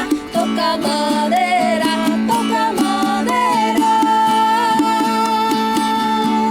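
Instrumental passage of an acoustic folk song: plucked strings keep a steady rhythm under a melody, with one long held high note through the second half.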